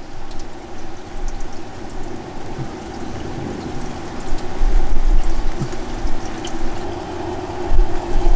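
Traeger pellet grill starting up: its fan running with a steady rushing hum. Low gusts of wind rumble on the microphone now and then.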